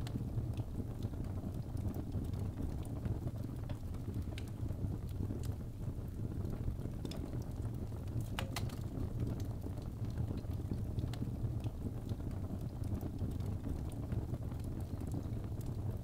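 Birch logs burning in an open fireplace: a steady low rush of flames with scattered crackles and small pops, and a quick cluster of sharper pops about eight and a half seconds in.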